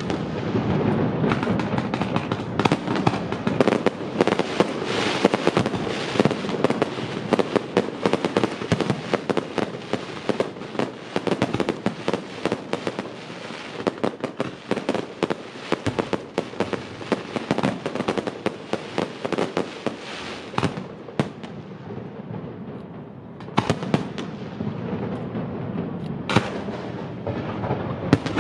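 Fireworks display: aerial shells bursting in rapid, overlapping succession with crackling and booms. The barrage thins for a moment about three quarters of the way through, then several strong bursts follow near the end.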